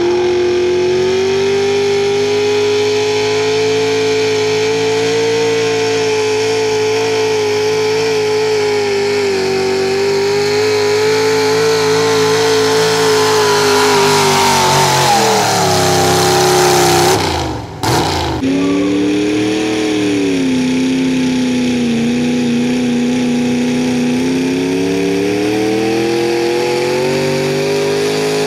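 Modified 4x4 pickup truck engines under full load pulling a weight-transfer sled. The first runs high and steady, then its revs fall off a little past halfway as the sled bogs it down. After a sudden cut, a second truck's engine dips and climbs again near the end.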